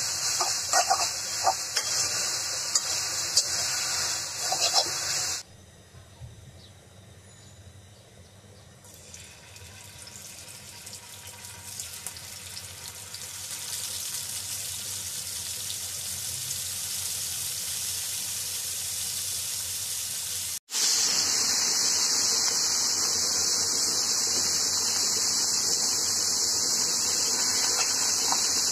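A metal spatula scrapes and clicks against a metal karahi while leafy greens are stirred. After a cut, small fish sizzle as they shallow-fry in oil in a frying pan, the sizzle growing louder. About two-thirds of the way in, a cut brings a loud, steady sizzle from a panful of small fish frying.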